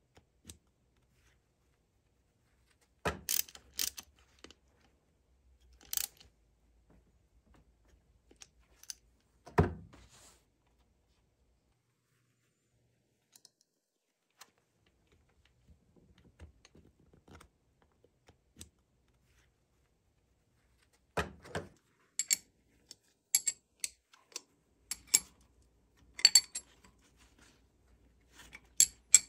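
Hand tools and small metal engine parts clicking and clanking while a cam chain tensioner is fitted to a Honda XR200 engine. Scattered sharp clicks, one heavier knock about a third of the way in, and a quick run of clicks in the last third.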